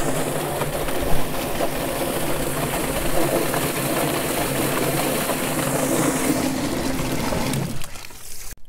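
Yardbird chicken plucker running with a scalded Cornish Cross chicken inside: a steady motor hum under the wash of hose water spraying into the spinning drum as the rubber fingers strip the feathers. The machine stops suddenly near the end.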